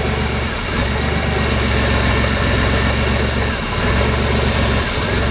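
GM 4.3L Vortec V6 idling roughly with its EGR valve pushed open, too much exhaust gas reaching the intake; the running note sags twice.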